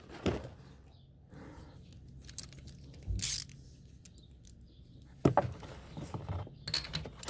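A ratchet with a spark-plug socket being fitted and handled on a Honda Ruckus scooter's spark plug: scattered light clicks and knocks of metal tools, a short rustle about three seconds in, and a run of clicks from about five seconds in.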